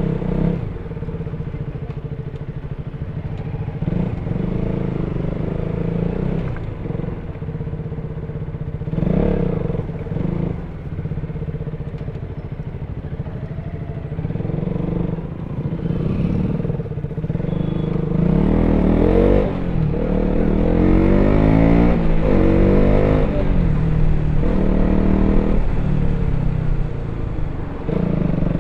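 KTM RC 200's single-cylinder engine on its stock exhaust, heard while riding. It runs at a steady pace with short blips of throttle, then revs higher in the second half, its pitch rising and falling several times in the loudest stretch.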